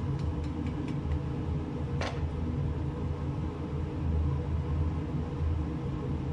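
Steady low mechanical hum throughout, with a few light ticks early and one sharp tap about two seconds in, as a tomato paste sachet and wooden spoon are worked against a stainless-steel pot.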